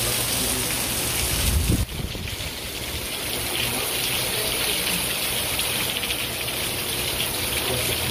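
Heavy rain pouring steadily onto a wet road and trees, an even hiss. About two seconds in, a brief low thump is followed by a momentary dip in level.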